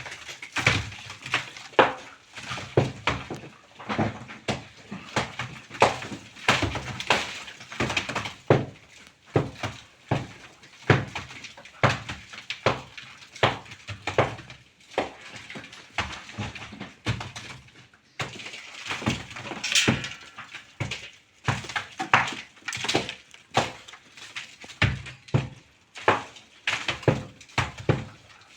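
Irregular knocking and tapping, short sharp strokes coming about one to two a second: hand tools striking on a building site.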